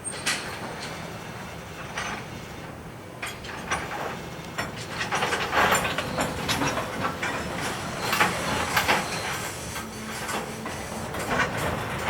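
Freight train cars rolling past, their wheels clacking over rail joints, with irregular metallic clanks over a steady rumble, loudest in the middle.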